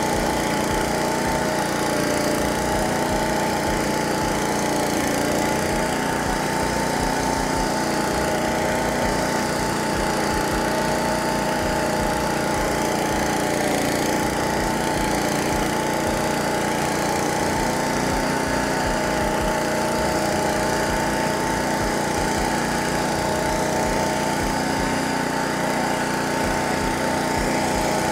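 Honda-engined Caiman Rolo 70H flail mower running steadily at an even pitch while mowing tall grass.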